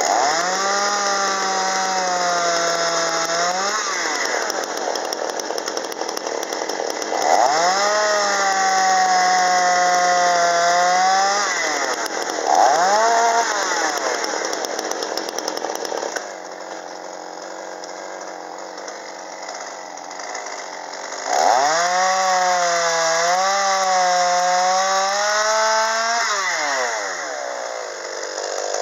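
Ported Chinese two-stroke chainsaw cutting through a log at full throttle several times, with one short blip of the throttle, idling in between. In each cut the engine holds a fairly steady high pitch, then rises briefly as the chain breaks through before falling back to idle.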